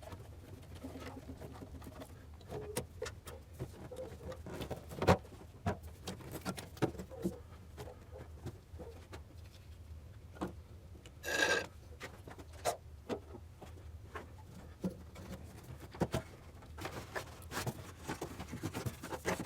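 Quiet hand-work sounds: scattered light clicks and knocks of tools and fittings as the power steering line and its clamps are undone, with one short pitched sound about eleven seconds in.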